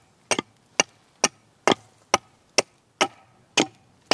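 Hatchet chopping into the end of a locust fence post to shape a point on it. The sharp strikes come in a steady rhythm of about two a second, some nine blows in all.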